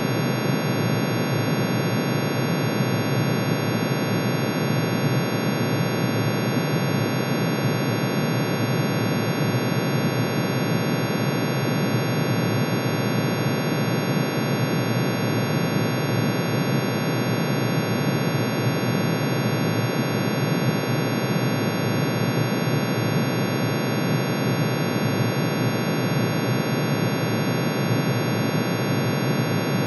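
Synthesized drone made from iron's atomic emission spectrum: many sine tones, one for each spectral line, summed and shifted into the audible range. It is a dense, steady, noise-like chord that does not change, densest in the low range.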